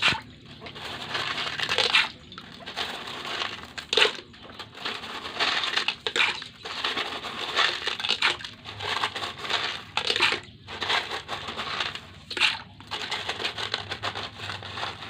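Small coloured gravel being dug through and stirred by hand, crunching and rattling in uneven bursts with brief pauses and sharp clicks of stones knocking together.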